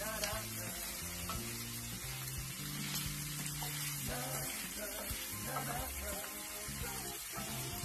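Diced pork sisig frying with a steady sizzle in a hot skillet while a wooden spatula stirs it.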